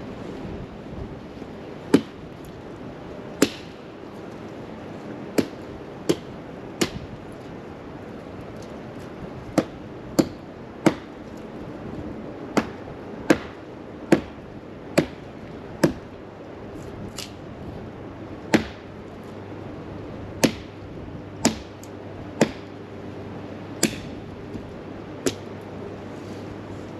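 A series of about twenty sharp knocks or cracks at uneven intervals, some in quick runs less than a second apart, over a steady background hiss.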